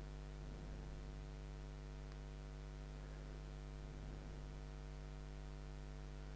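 Faint, steady electrical mains hum in the recording's microphone chain, with a single faint click about two seconds in.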